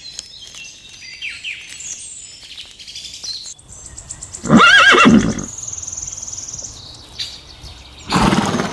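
Small birds chirping, then a horse whinnies once, loudly and with a wavering pitch, about four and a half seconds in. A short noisy burst follows near the end.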